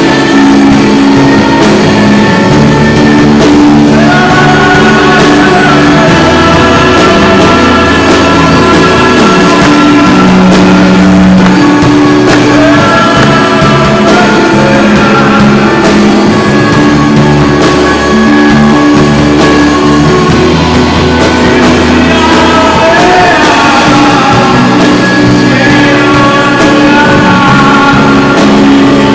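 Live worship band playing a slow, sustained praise song, with held chords, bass notes and a steady drum beat, and singing over it in a large hall.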